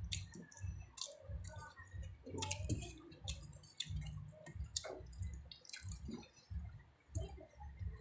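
Close-up eating sounds: irregular wet clicks and smacks of chewing, and of fingers mixing rice and squid adobo on a plate.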